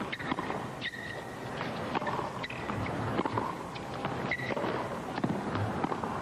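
Tennis ball struck back and forth by rackets in a baseline rally on a hard court, with sharp hits about every one and a half to two seconds over a low, steady crowd background.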